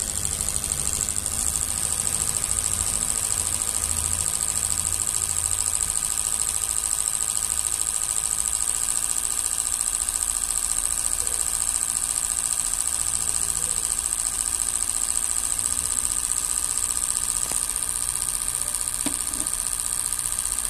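Fuel injector test bench running a flow test, firing four car fuel injectors into graduated cylinders at about 3 bar. It makes a steady mechanical hum with a constant high-pitched whine.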